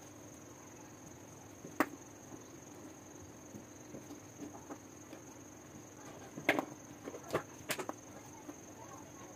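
Handling noise from a soldering iron being taken apart by hand: a few light clicks and knocks of its plastic handle, one about two seconds in and a small cluster between six and eight seconds, over a faint steady high whine.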